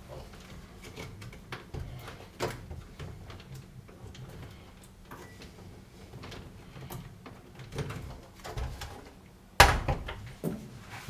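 Handling noises from a top-load washer's plastic control panel: scattered clicks and light knocks as the wire-harness connector is worked loose from the start-button display unit, with one sharp knock about nine and a half seconds in and a smaller one a second later.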